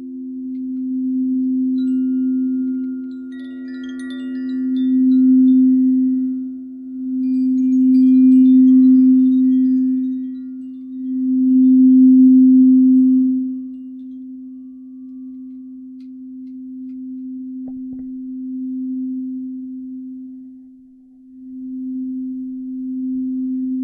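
Large frosted quartz crystal singing bowls sounding a deep, steady hum that swells and fades in slow waves, with faint higher ringing notes above it in the first half. A single small click sounds near the end.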